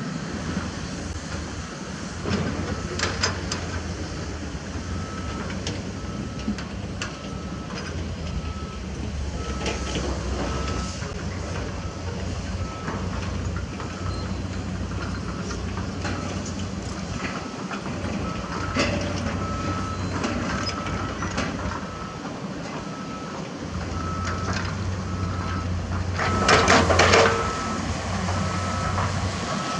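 Heavy diesel construction machinery running with a steady low drone, and from about five seconds in a reversing alarm beeping at a steady pace, about one beep a second. Scattered metallic clanks, with a louder clattering burst near the end.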